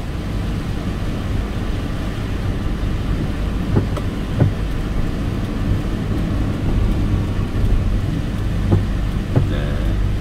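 Car driving on a rain-soaked road, heard from inside the cabin: a steady low rumble of tyres and engine, with a few short knocks.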